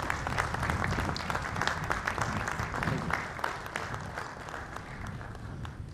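Crowd applauding, many hands clapping at once, fading away near the end.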